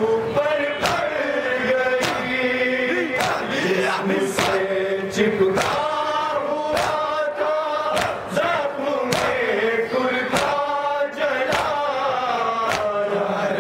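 A group of men chanting a nauha, a Shia lament for the martyrs of Karbala, together in a steady melody. They beat their chests with open hands (matam) in rhythm, a sharp slap roughly every second.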